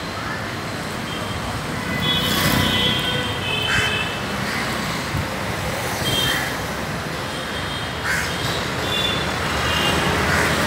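Steady city street traffic noise with passing vehicles, and a few short high-pitched calls or chirps scattered through it.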